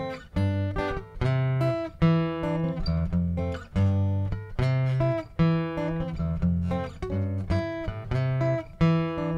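Solo steel-string acoustic guitar strumming chords in a steady rhythm, about two strokes a second, with the bass notes shifting as the chords change.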